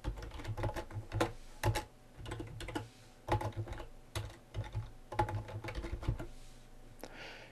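Typing on a computer keyboard: irregular runs of keystrokes with short pauses, thinning out near the end.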